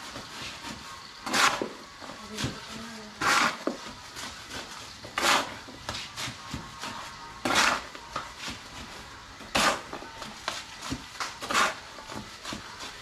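A hand tool scraping in cement mix in short, regular strokes, about one every two seconds, with lighter clatter between them.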